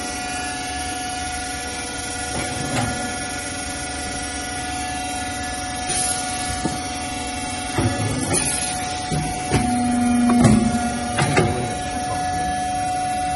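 Swing-arm shoe-material cutting press running with a steady motor hum. A series of knocks and clunks comes in the second half as the head is swung over and pressed down on the cutting die.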